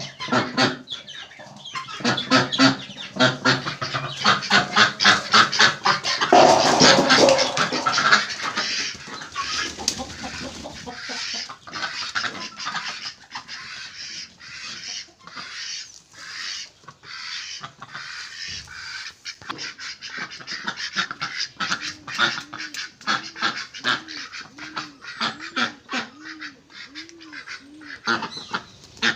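Ducks quacking in quick, repeated calls, loudest and densest in the first several seconds, then a steadier run of shorter quacks.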